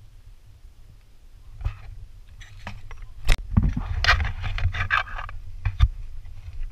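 Wind rumbling on an action camera's microphone, with scraping and rustling from the camera being handled while walking on sand. Two sharp knocks come partway through and near the end.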